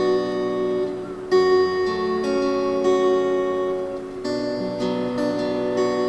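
Background music of acoustic guitar chords, with a new chord struck about every three seconds.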